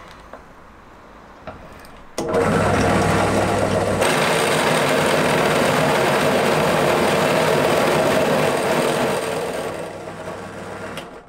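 Bench drill press motor starting abruptly about two seconds in and running steadily with a low hum as a flat spade bit bores into a wooden batten, then fading away near the end.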